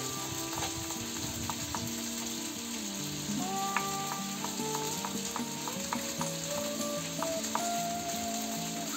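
Chicken frying in oil in a kazan, a steady sizzle, with irregular knife taps on a wooden cutting board as garlic is sliced thin. Calm background music with slow held notes plays over it.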